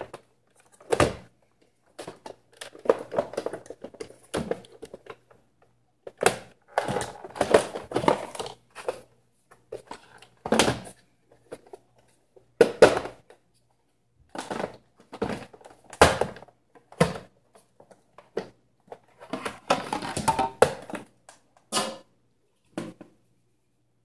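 Plastic casing and inner housing of a Nespresso Vertuo Next coffee machine being handled and taken apart by hand: irregular clicks, knocks and short scrapes of plastic parts, with a few louder knocks.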